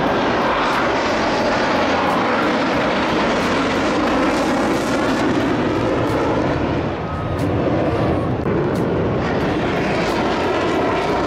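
Military jet aircraft flying over, a steady, loud engine roar with a brief dip about seven seconds in.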